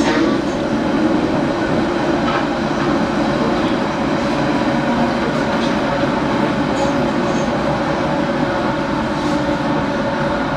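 Berlin S-Bahn electric train in motion, heard from inside the car: a steady rumble of wheels on the track with a few faint clicks.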